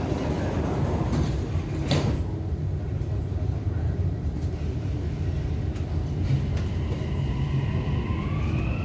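Dubai Metro train pulling away from a station, heard from inside the car: a steady low rumble, the doors knocking shut about two seconds in, then the motor whine rising in pitch as the train speeds up near the end.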